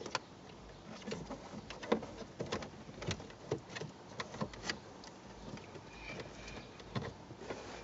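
Wiring and plastic under a car's dashboard being handled and tucked in above the fuse box: irregular light clicks and taps with rustling.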